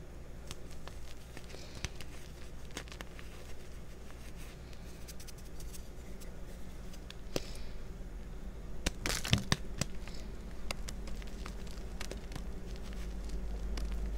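A hand digging and squeezing through crushed gym chalk powder, with soft crunches and crackles. About nine seconds in, a reformed pink chalk bar is crushed in the fist, giving a short cluster of sharper crunches. A steady low hum runs underneath.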